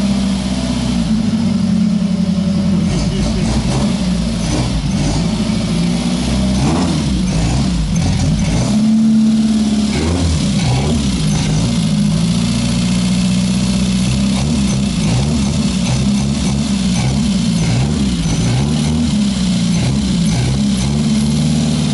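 Fiat Topolino's small four-cylinder engine running, revved up and down repeatedly with a raw, loud exhaust note; the exhaust is broken.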